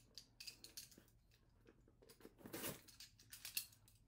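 Faint rustling and crackling of a shipping package being opened by hand, with a louder stretch a little past the middle.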